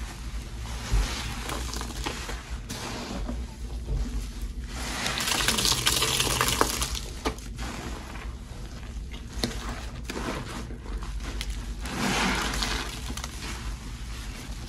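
Frothy cleaning-product water (Pine-Sol, Lestoil and Murphy's Oil Soap mixed) sloshing and splashing, with a few sharp clicks. The splashing swells louder in the middle and again near the end.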